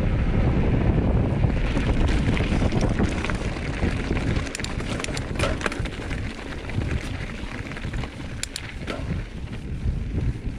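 Wind buffeting the microphone of a camera on a mountain bike ridden down a dirt trail, over steady tyre noise. Scattered sharp clicks and rattles from the bike come mostly in the middle and near the end.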